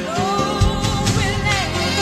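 Gospel-soul pop song: a wordless, wavering vocal line held over the band's full backing and a steady drum beat.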